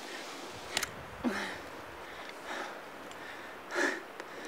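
A hiker breathing hard under load: a short sigh about a second in and a sharp breath near the end, with a couple of light clicks over a steady low hiss.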